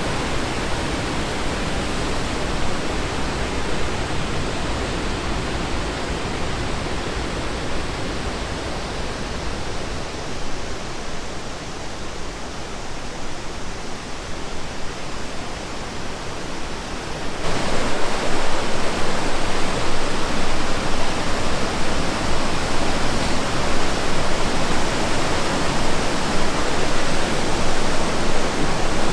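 Steady rush of fast-flowing river water over falls. A little past halfway it steps abruptly louder and brighter.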